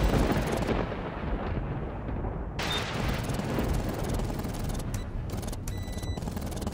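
A noisy rumble, strongest in the low end, that swells at the start and again about two and a half seconds in.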